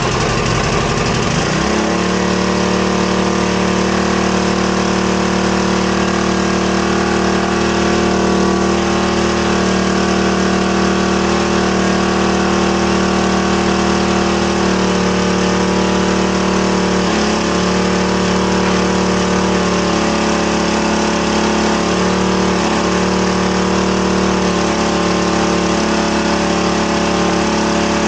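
Log splitter's small gas engine running just after a choked start, settling about a second and a half in into a steady run, with a couple of brief dips in speed later on.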